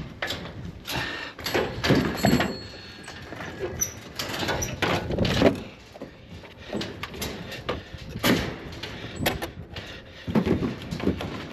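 A bicycle being shifted and wedged onto a loaded wire-mesh trailer: irregular metal clunks, knocks and scrapes as the frame and wheels bump against the mesh and a metal box.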